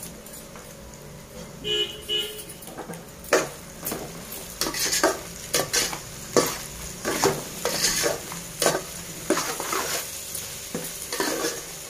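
A slotted metal ladle stirring and scraping vegetables and egg in a large aluminium pot, over a steady frying sizzle. From about three seconds in the scrapes come roughly twice a second. Near two seconds in there are two short pitched toots.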